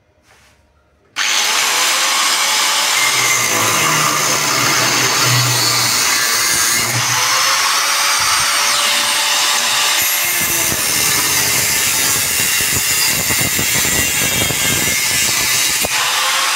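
Electric angle grinder switched on about a second in and running steadily at full speed, its disc later worked against a welded joint on square steel tubing.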